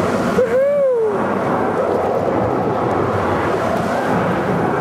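Rushing water under a raft on a water-ride channel, with wind on the microphone, steady and loud. About half a second in, a rider's short whoop rises and then falls in pitch.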